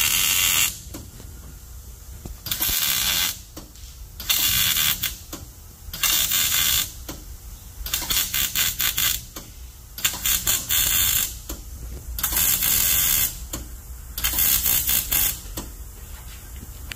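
MIG welder arc crackling in short bursts of about a second each, roughly eight in all with brief pauses between, as the trigger is pulsed to stitch a weld down a steel frame rail. The pulsing keeps too much filler from building up and dripping where thin metal is joined to thick.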